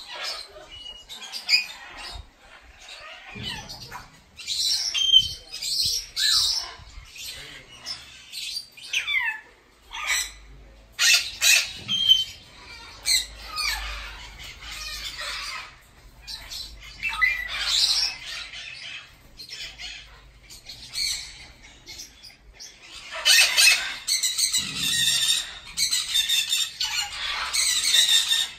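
Captive parrots in aviaries squawking and screeching, many calls overlapping, with a few gliding whistles. Near the end the calling turns into a long, dense stretch of harsh squawks.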